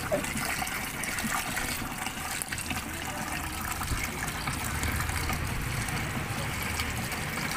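Water poured in a steady stream from a plastic bottle into a plastic bucket of powdered creamer, splashing into the wet powder.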